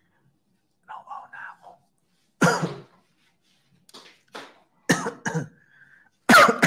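A man coughing several times and clearing his throat, with one loud cough about two and a half seconds in and a few shorter coughs after it.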